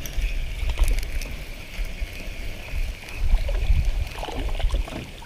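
Wind gusting on the microphone in low, uneven rumbles, with water lapping, scattered small clicks and a thin high whine that fades out about three seconds in.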